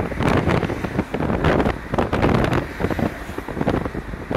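Wind buffeting the microphone in uneven gusts and thumps, over a steady rush of the flood-swollen river below.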